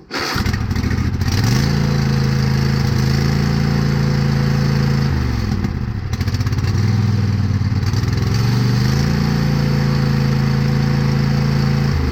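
Craftsman T240 garden tractor engine starting on choke, catching almost at once and running. Its speed rises and falls several times as the newly fitted throttle/choke cable is worked, showing the throttle responds properly.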